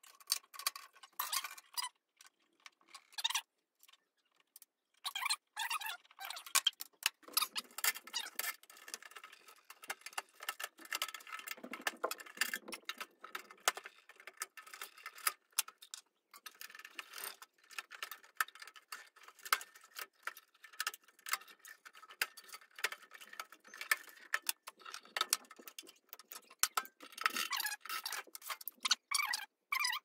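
Fast-forwarded sound of a microwave oven being taken apart by hand: a rapid, jumbled run of clicks, ticks and clinks from screws, screwdriver and sheet-metal parts.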